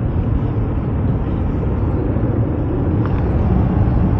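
Steady low rumble of a car driving along a road, engine and tyre noise heard inside the cabin.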